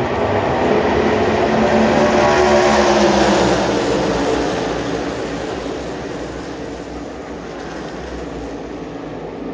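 A pack of NASCAR Cup stock cars at racing speed, V8 engines at high revs, swelling as they pass. It peaks about three seconds in, then drops in pitch and fades as they move away.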